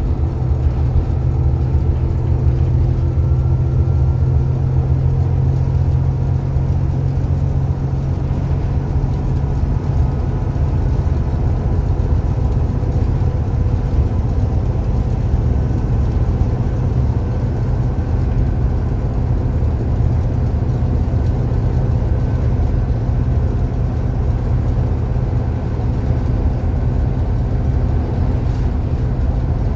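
Volvo B7TL double-decker bus running under way, heard from inside the passenger saloon: a steady low engine drone with road noise. The engine note changes about ten seconds in, and a faint whine joins a few seconds later.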